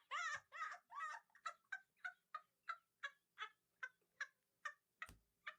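Rooster giving a run of short clucking calls, about three a second, spacing out and growing fainter. A single thump sounds about five seconds in.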